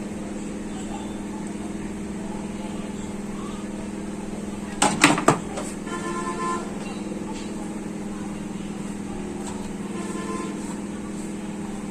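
Steady low hum throughout, with a quick cluster of sharp knocks about five seconds in and a short pitched tone just after.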